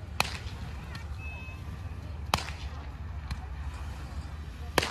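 Fireworks going off: three sharp cracks, about two seconds apart, over a steady low background rumble.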